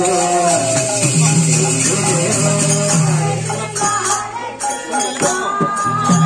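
Devotional singing over a steady low drone, with jingling percussion throughout; the drone drops out briefly around the middle.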